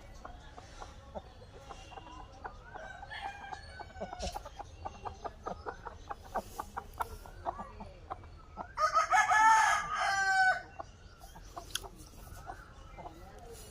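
Chickens clucking in a quick run of short calls, then a rooster crows once, loud and about two seconds long, around nine seconds in.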